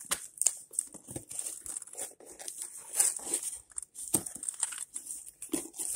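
Cardboard box handled and scraped as a plush toy is worked out of it: irregular crinkling, rustling and small scrapes of card and fur.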